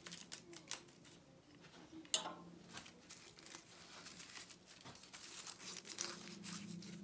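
Small Stanley 12-101 trim plane shaving wood: irregular short scraping, tearing strokes as the blade lifts very thin shavings, with a sharper knock about two seconds in.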